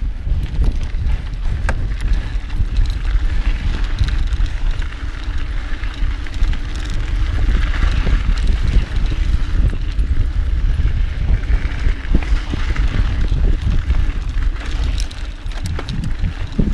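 Mountain bike rolling along a dirt trail: steady tyre noise with scattered knocks and rattles over bumps, under a heavy wind rumble on the microphone.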